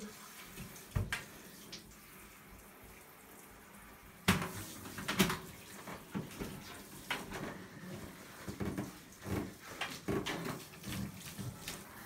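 Water running from a handheld shower head over a dog in a bathtub. The first few seconds are a steady hiss. From about four seconds in, irregular splashes and knocks sound in the tub.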